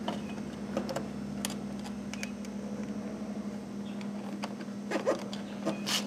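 Small clicks and rustles of a cable being pulled through and handled against a plastic outboard cowling, with a few sharper clicks near the end, over a steady low hum.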